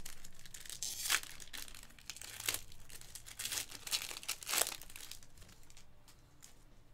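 Crinkly plastic wrapping on trading cards being torn open and crumpled by hand, in a string of sharp crinkling bursts that die down near the end: a new box of cards being unwrapped and opened.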